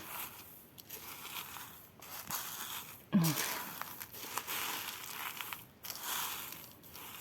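Crinkly rustling of plastic packets of sequins being handled and rummaged through, coming in several swells, with a brief vocal sound about three seconds in.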